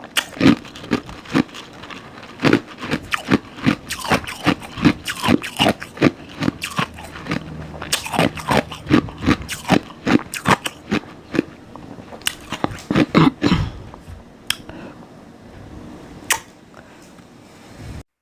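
Close-up mouth crunching and chewing: rapid crisp bites, about two to three a second, thinning out after about fourteen seconds to a couple of last crunches and then stopping.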